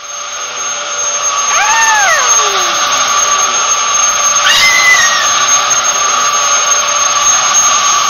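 Vacuum cleaner running steadily with a constant motor whine. A small child's voice rises and falls over it twice, about two seconds and five seconds in.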